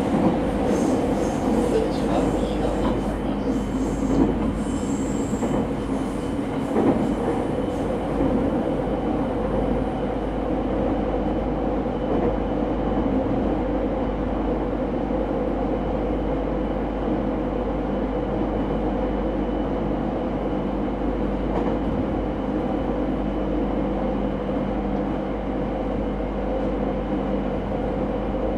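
Running sound inside a JR 209-0 series electric train's motor car, unrenewed MoHa 209-135: a steady rumble of wheels and traction equipment at an even speed. A few sharp clicks come in the first several seconds, and a faint steady high tone sets in about three seconds in.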